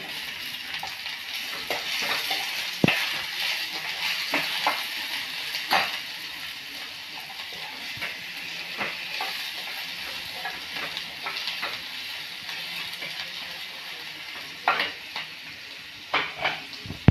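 Sliced onions sizzling in hot mustard oil in a wok (kadai) while a steel ladle stirs them, scraping and clicking against the pan now and then; the sharpest knocks come about three seconds in and several near the end.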